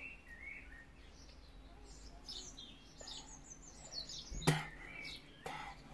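Small birds chirping in quick runs of short falling notes, with one sharp click near the end.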